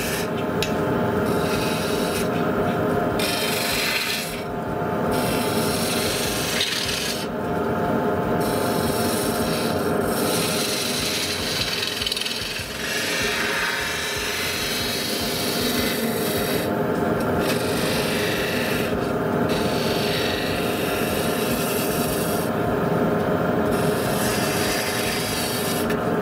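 Wood lathe running with a 13 mm spindle gouge cutting into the spinning wood, a rasping hiss of shavings over the lathe's steady motor hum. The hiss breaks off briefly several times as the tool is lifted from the cut.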